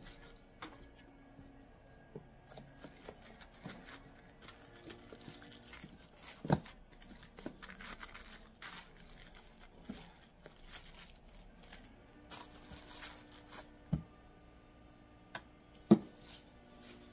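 Handling sounds: scattered knocks and clicks of things being set down, the loudest about six and a half seconds in and near the end, with rustling and crinkling in between.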